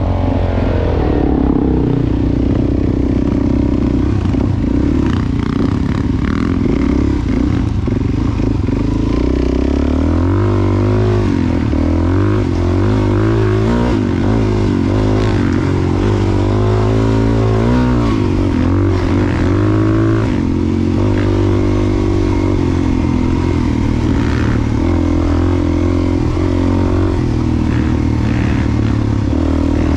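Dual-sport motorcycle's 400 cc single-cylinder four-stroke engine running under way on a dirt trail. Its engine speed rises and falls repeatedly as the throttle is worked.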